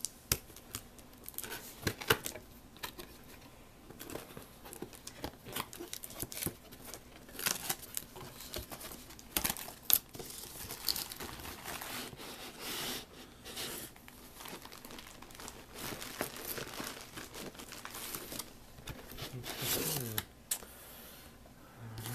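Cardboard and paper packaging being handled and opened by hand: irregular rustling and scraping with many sharp clicks as the flaps of a cardboard box are pulled open.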